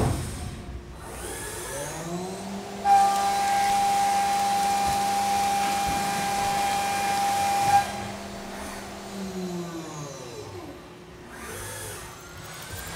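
CNC mill face-milling aluminium with a 3-inch Kennametal Stellram shell mill at a 400 inch-per-minute feed. The machine's whine rises. About three seconds in, the cutter bites and a loud steady high-pitched cutting tone with chip noise runs for about five seconds, then stops suddenly as the cut ends and the whine falls away.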